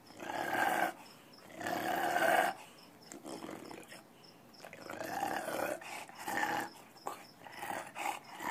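English bulldog making grumbling, growl-like vocal sounds in repeated bouts: two louder ones in the first few seconds, then after a short pause a run of shorter ones.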